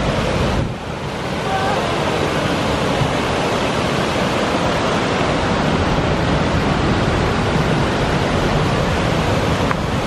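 Waterfall rushing steadily as water pours through a narrow rocky gorge.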